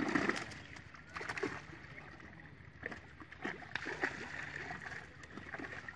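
Water splashing as big fish thrash in a drawn-in fishing net, in short scattered splashes over a low wash of moving water, with a louder splash right at the start.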